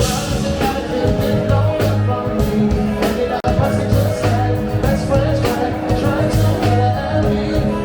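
Live funk and soul band playing through a PA, with bass, drums and guitar in a steady groove and a singer's voice over them.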